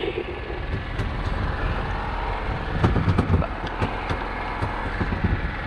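A boat engine running steadily, with a few light clicks and knocks over it.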